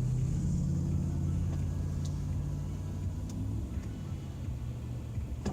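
Steady low rumble of a moving car, with a low hum that eases off a little past halfway.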